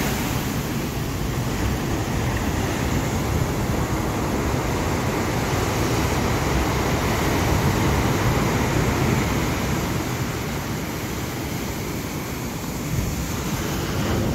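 Heavy storm surf at high tide: big waves breaking and washing up the beach in a continuous, steady rush of water.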